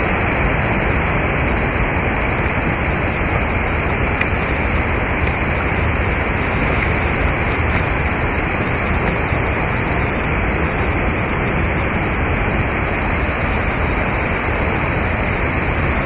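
Steady, unbroken rush of flowing water, like a waterfall or fast stream.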